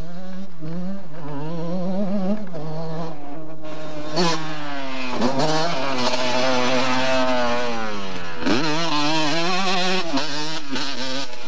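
Motocross bike engine revving hard, its pitch climbing and dropping with throttle and gear changes, loudest in the middle as the bike passes close.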